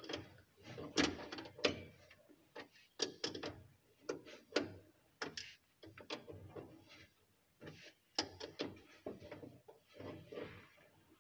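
Irregular metallic clicks, taps and scrapes of a flexible hose pipe's nut being turned by hand onto a chrome angle valve.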